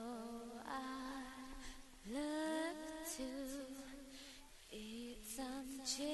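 A single voice singing a slow melody with no accompaniment, with sliding notes and a wavering vibrato.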